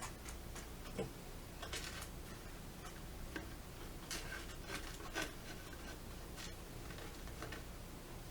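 Scattered light clicks, taps and short rustles of small pieces being handled on a tray while a gingerbread house is decorated, with sharper taps about a second in and again about five seconds in.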